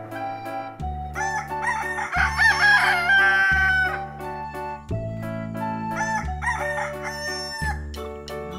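A rooster crowing twice, the first crow about two seconds in and the second about six seconds in, over background music with a steady bass line.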